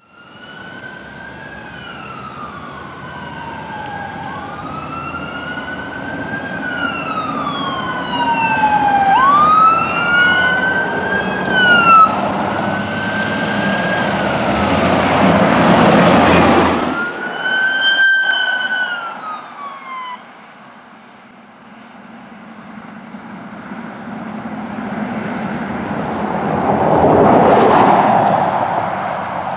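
Fire engine and chief's vehicle sirens wailing, two sirens overlapping in rising and falling sweeps, while a loud rush of engine and road noise builds as the apparatus passes close. After a sudden cut, a siren winds down, and near the end a rushing noise swells and fades.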